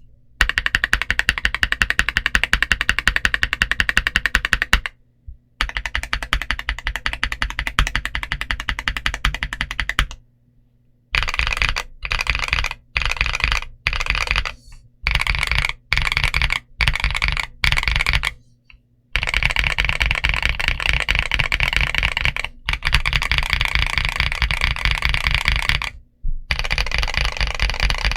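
Fast typing on a GMK61 60% mechanical keyboard with MMD Honey tactile switches and XVX Retro PBT keycaps, keystrokes clacking in quick runs. The typing stops briefly about five and ten seconds in, comes in short bursts for the next several seconds, then resumes in long runs.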